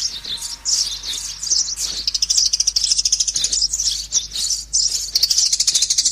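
Sparrows chirping in a busy, continuous chatter, breaking into a fast run of rapid chirps from about halfway through.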